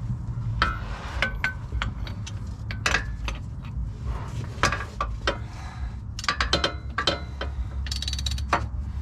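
Ratchet wrench clicking in irregular spurts, with metal clinks, as the engine's crankshaft is turned over by hand.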